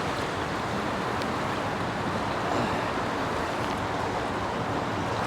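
Shallow, fast-flowing river water rushing steadily.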